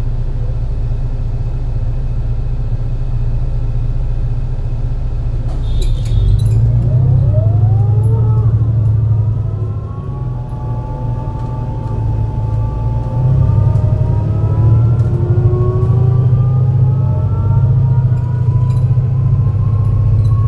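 MAN NL202 CNG bus running with a misfiring engine, its low rumble steady at first. About six seconds in there is a short hiss, then the bus pulls away: the engine gets louder and the ZF Ecomat automatic gearbox whines, rising in pitch. The whine drops at a gear change around halfway through and then climbs slowly again under load.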